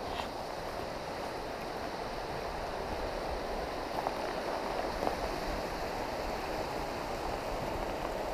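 River water rushing steadily, with a couple of light ticks about halfway through.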